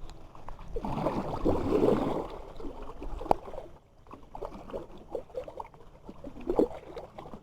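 Water splashing, loudest for about a second near the start, then small trickling and dripping sounds, with a single sharp knock about three seconds in.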